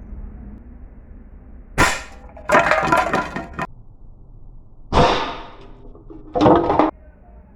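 Gas-ram air rifle, 5.5 mm (.22) calibre, fired twice about three seconds apart. Each sharp report is followed within a second by a longer clattering, clanging noise.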